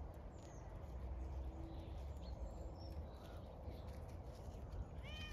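Quiet outdoor farm ambience: a steady low rumble with a few faint, short bird chirps, and a brief animal call near the end.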